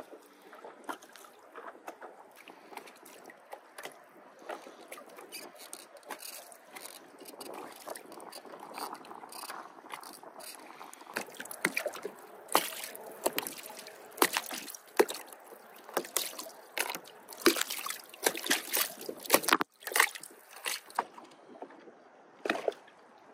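Small waves slapping and splashing against the pontoons of a Pond Prowler 10 mini boat, soft at first, then a run of irregular louder splashes from about halfway through.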